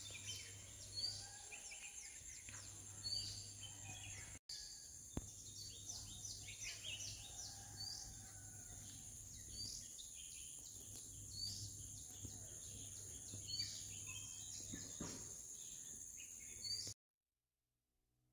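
Countryside ambience: a steady high insect drone with birds calling over it, one giving a short, sharp call every two seconds or so among many quick chirps. It all cuts off abruptly about a second before the end.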